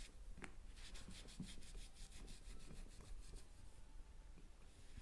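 A damp cloth wiping back and forth over a granite countertop sample: a faint rubbing in quick strokes, several a second.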